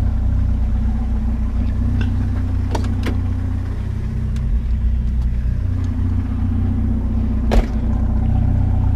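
Pickup truck engine idling steadily, with a few light clicks and one sharp snap near the end, the clippers cutting a power cord off a curbside item.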